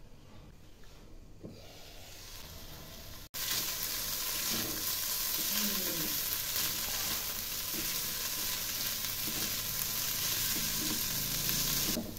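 Potato cubes and fenugreek leaves sizzling in a frying pan on high heat while a spatula stirs and scrapes them. The loud sizzle starts abruptly about three seconds in, after a fainter stretch from the covered pan.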